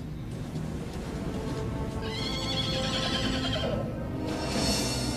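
A horse whinnying over background music, first a long wavering call about two seconds in, then a shorter high one near the end.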